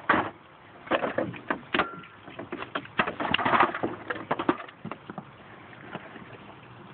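Irregular knocks, clunks and rustles from handling, as the spare tire is got out of the car's trunk. They are busiest in the first half and die down after about five seconds.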